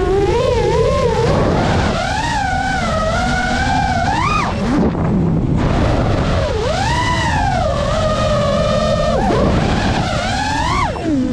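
FPV quadcopter's brushless motors whining, the pitch swooping up and down with every throttle change, over a low rushing noise. The whine drops away for a moment about five seconds in, and again with a quick plunge in pitch near the end.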